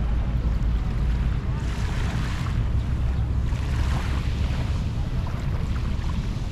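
Wind buffeting the microphone in a steady low rumble, with small waves washing up on the sand twice, about two seconds in and again about four seconds in.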